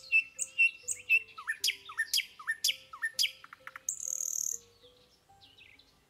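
Common nightingale singing: a run of short repeated whistled notes, then a series of upward-swooping notes with sharp clicks, a brief high buzzy trill about four seconds in, and a few falling notes before it fades out. Soft background music plays underneath.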